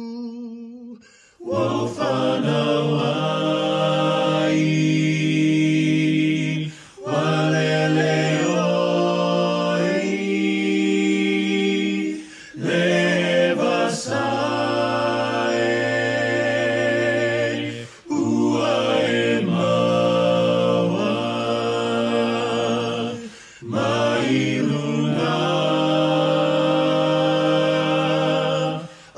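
Unaccompanied voices singing together in harmony (a cappella), in sustained phrases of about five seconds, each followed by a short pause.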